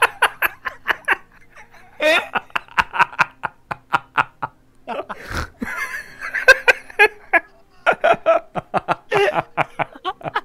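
People laughing in several bouts of rapid, pulsing laughter with short pauses between them.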